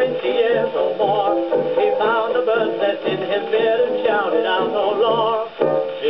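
1920s dance-band music from a 78 rpm shellac record played on an acoustic horn gramophone, with a steady bass note about twice a second under wavering melody lines. The sound is thin, with no treble above the mid-highs.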